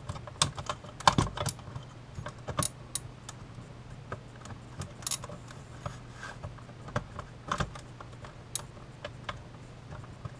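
Irregular clicks and taps of small plastic parts as the flip-display mechanism of an old Panasonic alarm clock is handled and pressed into its plastic case, loudest about a second in. A faint steady low hum runs underneath.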